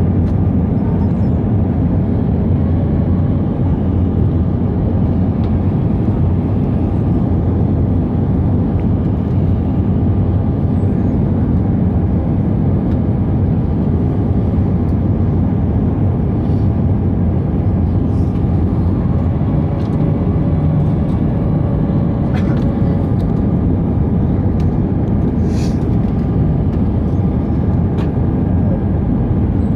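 Steady cabin noise of an Airbus A319 airliner in flight: a deep, even rush of engine and airflow noise with a few faint steady tones above it.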